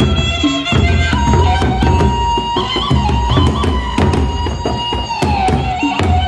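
Gendang beleq ensemble playing on the march: large double-headed barrel drums beaten with sticks in a dense, driving rhythm, with cymbal clashes and a reedy wind instrument holding a long, sustained melody line that steps down in pitch about five seconds in.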